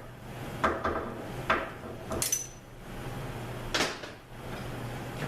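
Slide hammer knocking against its stop, about five sharp metallic strikes in the first four seconds, one leaving a brief high ring, as it pulls the front pump out of an A-904 (TorqueFlite) automatic transmission case. A steady low hum runs underneath.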